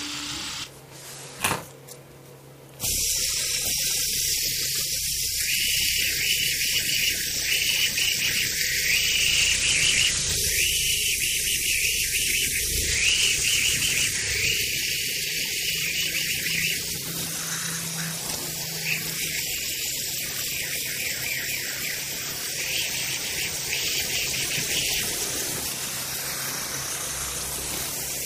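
Custom blue G10 double finger spinner on a full-ceramic silicon-nitride bearing, spinning in the hand close to the microphone: a steady whirring hiss that starts suddenly about three seconds in, after a single click.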